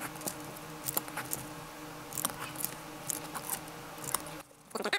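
Pencil scratching along a steel ruler on paper as lines are drawn, with light clicks and taps of the ruler and pencil being set down and moved, over a steady low hum that cuts off near the end.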